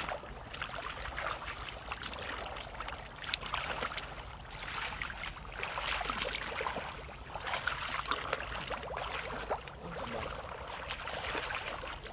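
Shallow muddy water sloshing and splashing as hands dig in the mud and legs wade through it, with many small irregular splashes and drips.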